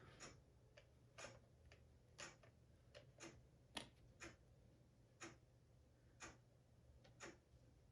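Near silence with about a dozen faint, sharp clicks, irregular at first and then about a second apart.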